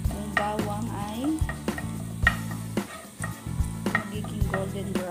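Minced garlic sizzling in hot oil in a non-stick pan while a wooden spatula stirs it, scraping and tapping the pan about twice a second.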